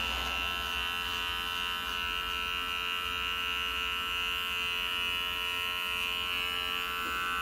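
Electric hair clipper buzzing steadily as it is run over a close-cropped scalp, shaving the head down.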